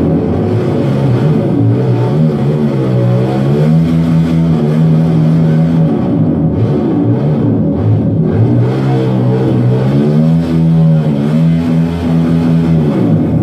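Motorcycle engine revving, its pitch rising and falling twice and holding steady in between, over guitar music.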